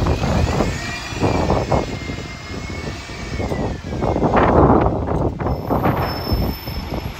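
Alexander Dennis Enviro200 MMC single-decker bus pulling away, its drivetrain whine rising and then falling off over a few seconds. Strong gusts of wind buffet the microphone throughout, loudest about four to five seconds in.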